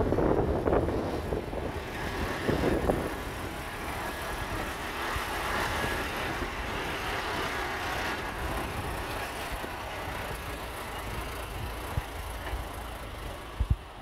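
Loaded three-axle dump truck driving past on dirt, its diesel engine running steadily. It is loudest in the first few seconds and fades as the truck moves away.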